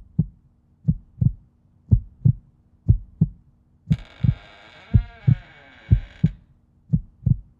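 Heartbeat sound effect: a double thump, lub-dub, about once a second. A hissing layer with a dipping glide joins in the middle for about two seconds and cuts off suddenly.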